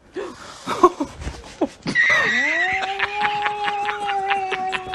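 Kitten making a long, steady, low moaning cry. It starts about two seconds in, rises into a held note, and sinks slightly as it ends about three and a half seconds later.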